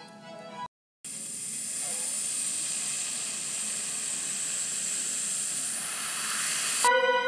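Background music breaks off and, after a brief silence, a steady rushing hiss sound effect sets in, growing a little brighter. It cuts off suddenly near the end as music with long held notes comes back in.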